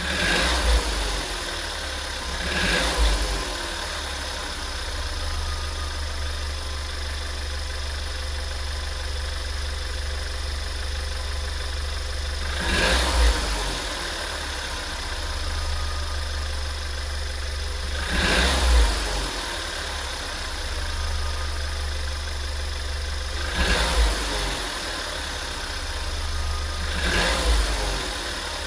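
Volkswagen 1.4 TSI CAXA turbocharged four-cylinder petrol engine idling steadily, with about six short blips of the throttle that rise and fall in pitch. The owner wonders whether the engine is making a weird sound.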